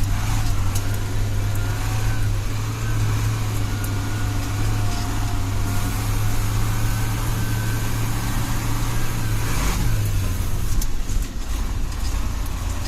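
Ural 4320 truck's diesel engine running steadily at a low idle-like note, which shifts briefly about ten seconds in.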